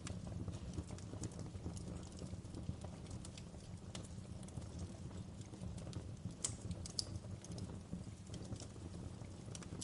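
Wood fire crackling: irregular sharp pops and snaps over a steady low rumble, with a couple of louder pops about six and a half and seven seconds in.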